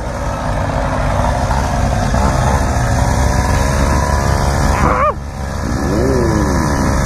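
Mini moto engine running as the little bike rolls across gravel, with a rough wind rumble on the microphone. Brief sliding rises and falls in pitch come about five and six seconds in.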